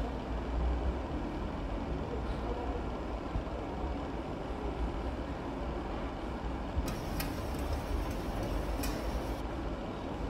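Steady low rumble of background machinery noise, with a few sharp clicks about seven and nine seconds in.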